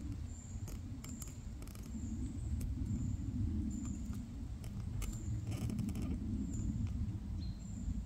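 A small bird giving short, very high, thin calls, repeated about once a second, over a steady low rumble, with scattered clicks.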